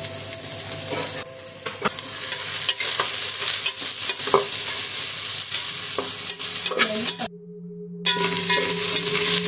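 Sliced onions, garlic and whole spices sizzling as they fry in oil in a metal pot, with a spatula scraping and clicking against the pot as they are stirred. The sound cuts out briefly about seven seconds in, then the sizzling picks up again.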